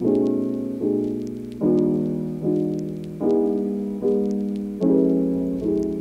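Background piano music: soft chords struck at an even, unhurried pace, each one fading away before the next.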